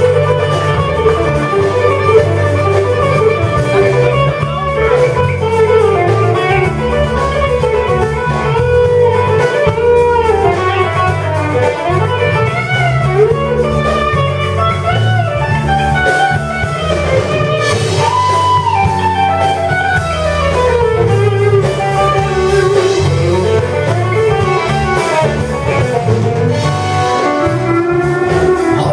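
Live country-style guitar instrumental: an electric guitar plays fast lead runs with notes that bend up and down, over an acoustic guitar strumming the rhythm.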